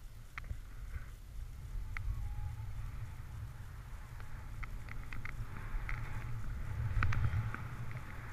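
Wind buffeting a ski-mounted action camera's microphone as a skier runs through fresh powder, with skis hissing over the snow and scattered clicks. The rumble swells about seven seconds in.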